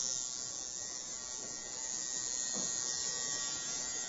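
Electric tattoo machine buzzing steadily as its needle works on the skin.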